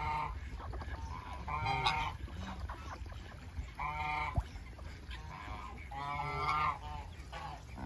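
Geese honking: a handful of short calls a second or two apart.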